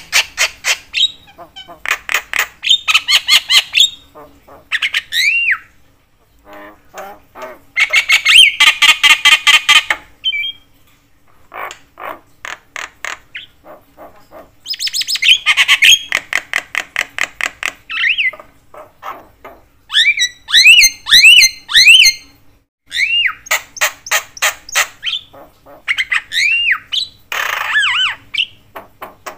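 Javan myna calling continuously: loud, harsh rattling chatter in fast runs of notes, in bouts with short gaps, broken by clear whistled notes that rise and fall.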